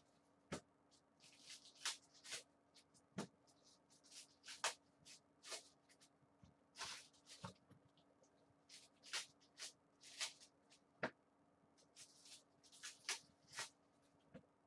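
Trading cards and pack wrappers being handled by gloved hands: irregular short rustles and crinkles of card stock and wrappers, over a faint steady hum.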